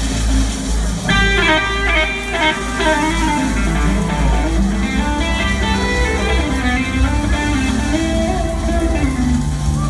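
Live blues-rock band jamming: an electric guitar plays fast lead runs over bass, drums and rhythm from the rest of the band.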